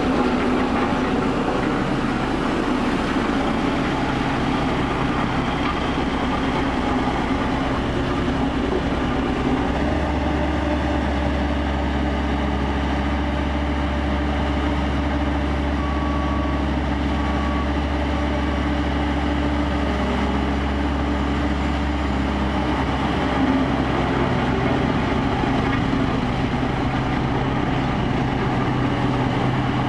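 Steel-drum road roller's engine running steadily. A deep low hum joins in from about ten seconds in and drops away again about thirteen seconds later.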